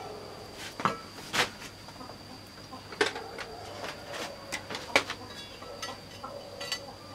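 A rusted steel hoe blade clinking and knocking against a wooden block and concrete as it is handled and shifted: about five sharp, separate taps spread over several seconds.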